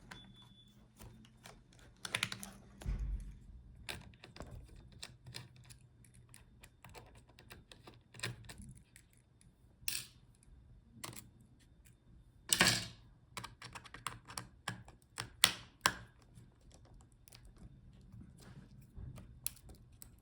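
Scattered small clicks and taps of a screwdriver working the screws out of a laptop motherboard, with a few louder knocks of tools or parts set down on the case.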